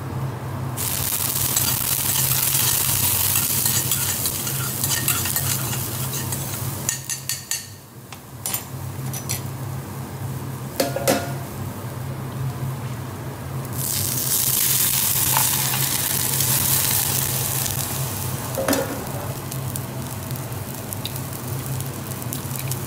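Minced garlic and shallot sizzling in a stainless steel frying pan over a gas flame. The sizzle swells twice, with a quieter stretch between in which a spoon clicks against the pan a few times. A steady low hum runs underneath.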